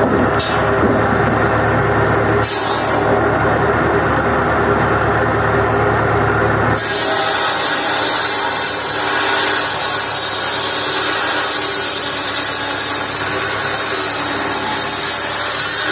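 PTO-driven circular saw bench running steadily off a 1958 Massey Ferguson 35's four-cylinder engine, sawing firewood. About seven seconds in the sawing turns harsher and hissier and holds that way.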